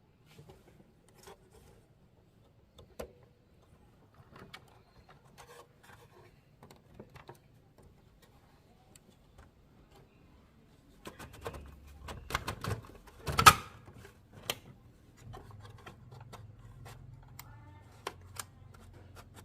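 Scattered small clicks and taps of parts and tools being handled, growing denser a little past halfway, where the loudest sharp click comes, with a faint low hum underneath in the second half.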